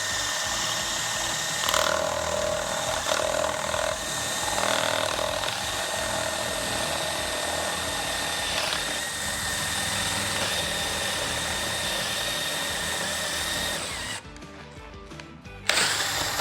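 DeWalt DCD1007 18V brushless hammer drill in its second gear, boring through wood with a spade bit: a steady motor whine under load for about fourteen seconds, then it stops. A short second run follows near the end.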